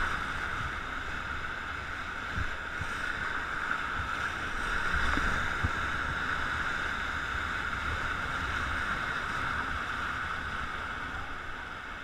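Steady rush of whitewater from a river rapid, heard from a raft running through it, with wind buffeting the microphone.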